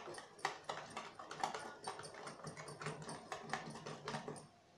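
Wire whisk beating thick moong dal batter in a steel bowl, clicking against the bowl about four times a second, and stopping shortly before the end. The batter is being beaten in one direction to make it light.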